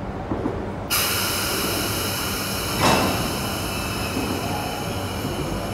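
Double-deck suburban electric train in the station. A steady hiss with several high tones starts suddenly about a second in, and a short, louder burst comes near the three-second mark.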